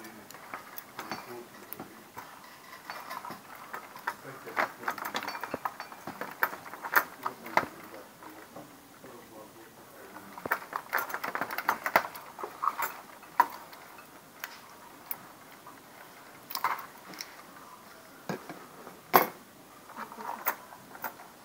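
Scattered small clicks and rustles of electrical wires and plastic connector parts being handled, with a cluster of clicks from scissors working on a wire near the middle. A single sharper click comes near the end.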